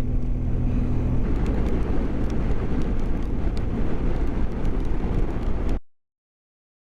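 Riding noise on a BMW GS motorcycle in the rain: engine and wind rush, with a steady engine note for about the first second giving way to a rougher rush. The sound cuts off abruptly to silence near the end.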